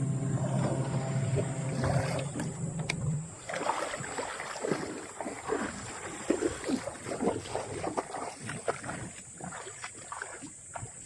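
A boat's motor running steadily, stopping about three seconds in, followed by irregular splashing and knocking of water around the boat.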